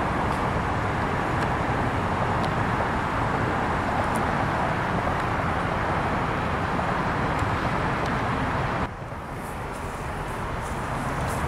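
Steady outdoor background noise of distant traffic and yard machinery, an even rumble and hiss that drops suddenly to a quieter level about nine seconds in.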